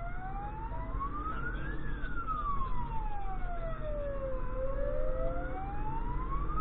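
Fire engine's wailing siren heard from inside the cab, sweeping slowly up and down, one full rise and fall about every five seconds, over the low rumble of the truck's engine.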